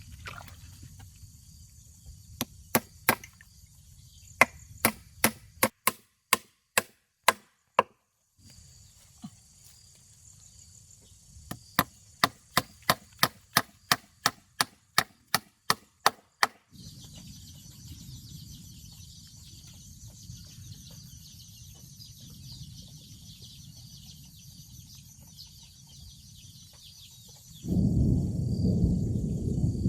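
Chopping: two runs of sharp blade strikes, about two to three a second, with a pause between them. Near the end a loud low rumble sets in.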